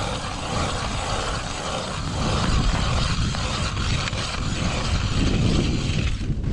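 Hand-crank ice auger being turned through lake ice, its blades grinding and scraping steadily as it bores a fishing hole, under a low rumble.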